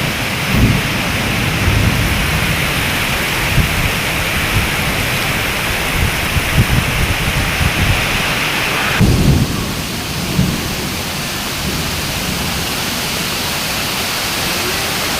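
Heavy rain pouring in a summer storm: a dense steady hiss with irregular low rumbling. About nine seconds in, the higher part of the hiss drops off abruptly.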